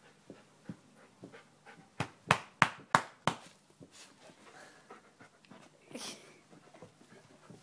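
Golden retriever panting during rough play, with a quick run of five sharp knocks about two seconds in.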